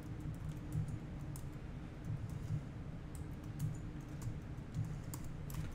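Typing on a computer keyboard: irregular keystrokes, some sharper than others, over a steady low hum.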